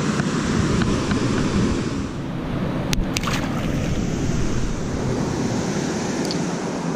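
Steady rush of water pouring through a spillway, mixed with wind buffeting the microphone. A couple of sharp clicks sound about three seconds in.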